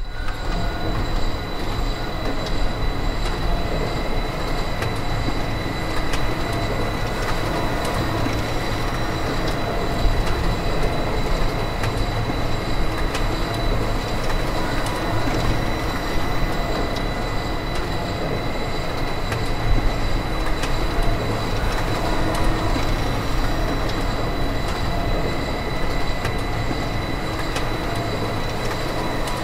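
Factory machinery ambience: a steady mechanical din with thin high whining tones held throughout and occasional short knocks.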